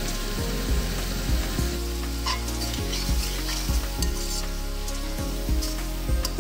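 Sliced onions sizzling as they fry in hot oil in a pan, with a metal spatula stirring and scraping them against the pan in repeated strokes.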